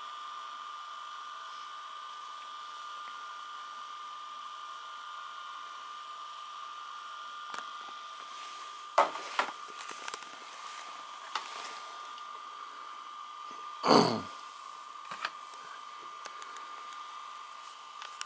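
VCR deck of a Philips DVD755VR combo, cover off, playing a VHS cassette: a steady whir with a high whine from the spinning head drum and tape transport, with a few clicks about nine seconds in and a louder knock about fourteen seconds in. The tape is jerking on the left side from time to time, which the owner takes for a mechanical fault in the deck.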